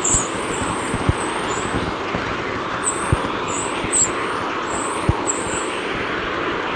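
A space recording made audible, such as a sonified spacecraft recording: a steady rushing hiss with short high chirps, some rising and some falling, about every half second, and a few scattered sharp clicks.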